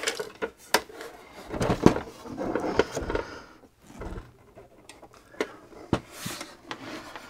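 Hollow plastic knocks, clicks and scrapes as the removed plastic scanner and document-feeder unit of an Epson WF-4740 printer is turned over and handled.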